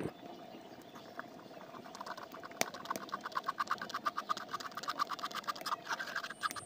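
Steel spoon stirring and scraping thick mustard paste through a wire-mesh strainer: a rapid, even run of scratchy ticks, about eight a second, starting about two seconds in.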